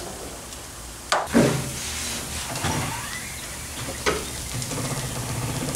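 Knocks and clanks of parts and tools being handled at a car's front wheel on an alignment rack: two sharp knocks, about a second in and about four seconds in, with a low steady hum underneath that grows a little stronger in the later part.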